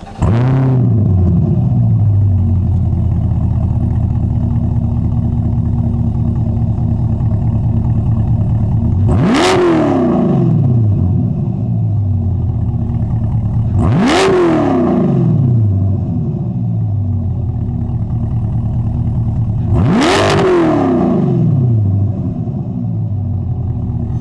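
C8 Corvette V8 starting with a rev flare, then idling steadily, blipped three times: each rev rises sharply and falls straight back to idle.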